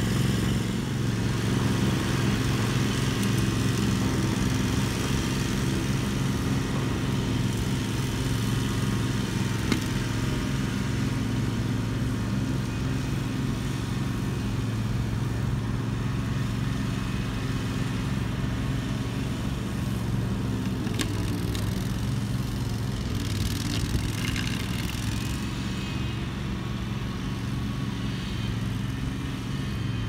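Engine of a Spider remote-controlled slope mower running steadily, an even engine hum that holds the same pitch throughout.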